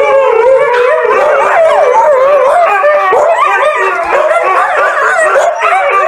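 Two huskies howling together in long, wavering calls that slide up and down in pitch, overlapping with no pause.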